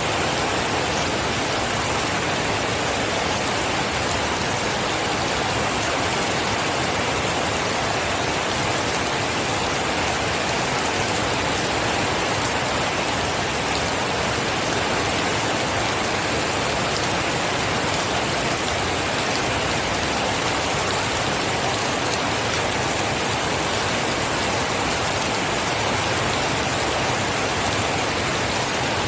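Steady heavy rain falling, an even wash with fine drop ticks on a surface, unchanging in level.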